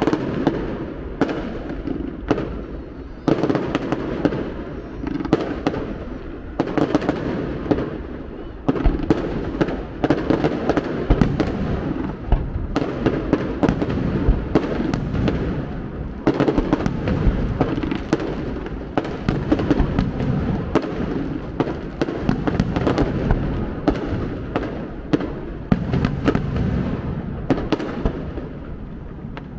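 Fireworks display: aerial shells bursting in quick succession, with many sharp bangs over a continuous low rumble.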